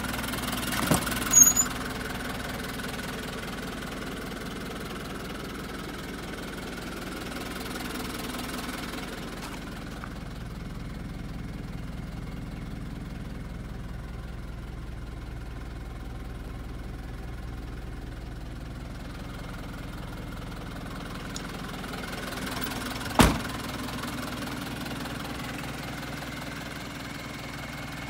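Mitsubishi Canter 4D35 four-cylinder diesel engine idling steadily. There are a few sharp knocks about a second in, and a single loud thump late on.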